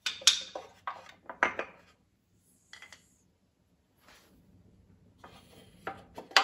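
Small carved wooden animal figures clacking against a wooden toy ark as they are set inside it. A quick run of hard knocks in the first two seconds, a couple more around three seconds, and another cluster near the end, the loudest at the very end.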